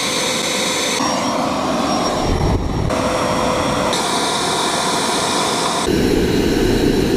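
Homemade propane-fuelled turbojet engine running steadily at idle, about 32,000 rpm: a loud, continuous jet rush and whine. The tone changes abruptly several times.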